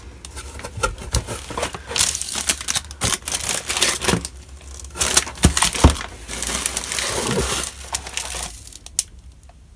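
Clear plastic wrapping crinkling as wrapped packages are lifted out of a cardboard box and set down, with sharp clicks and knocks of the packages and box. It goes much quieter near the end.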